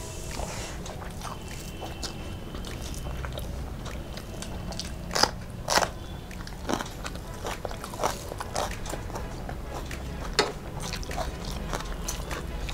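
Close-miked eating: chewing of rice and curry eaten by hand, with sharp crunchy bites of raw green chilli. The loudest bites come as a pair about five to six seconds in and once more near ten seconds.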